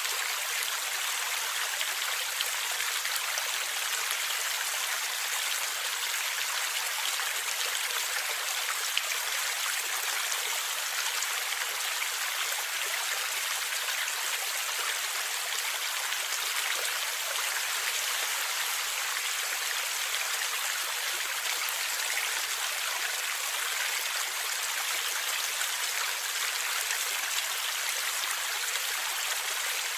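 Gurgling stream water running steadily, an even rush dotted with many small splashes.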